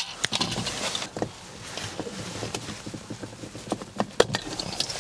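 Scattered plastic clicks, taps and rustling as hands work a wiring-harness connector and plastic trim behind a car's rearview mirror. A few sharper clicks stand out, one right at the start and one about four seconds in.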